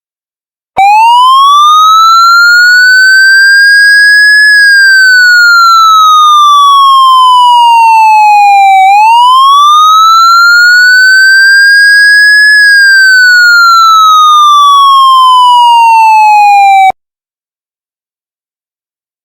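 Siren sounding a wail: one loud, steady tone that sweeps slowly up and then down twice, each rise-and-fall taking about eight seconds. It starts about a second in and cuts off abruptly near the end.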